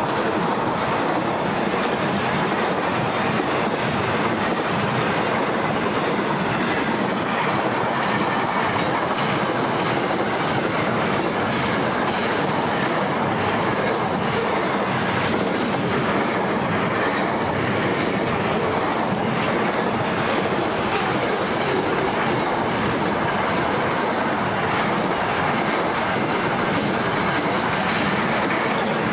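Container wagons of a long Pacific National freight train rolling past close by: a steady, unbroken noise of steel wheels running on the rails.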